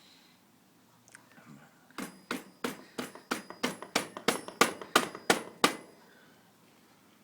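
About a dozen quick mallet blows on a BMX crank spindle, roughly three a second and growing louder, with a faint metallic ring. The spindle is stuck and is being knocked across to sit evenly in the bottom bracket.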